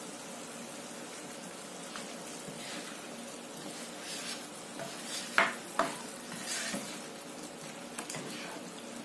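Thick egg masala gravy simmering and sizzling in a frying pan while a spatula stirs and scrapes through it. There are two sharp knocks a little over halfway through.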